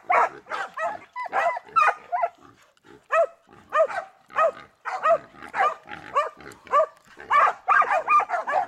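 Hunting dogs barking in a fast, repeated run at a wild boar penned in front of them, with a short lull about two seconds in.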